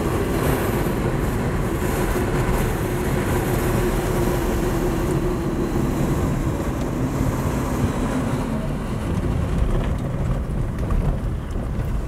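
Car driving on a paved road: engine and tyre noise with a steady hum that drops to a lower pitch about seven seconds in as the car slows.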